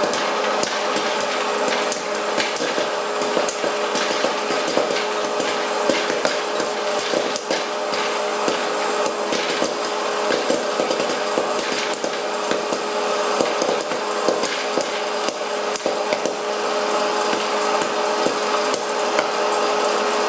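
Elechomes hot-air popcorn machine running: its hot-air blower gives a steady whirr with a constant hum, over which kernels pop in quick, irregular sharp cracks. The popping is densest through the middle and thins out near the end as the batch finishes.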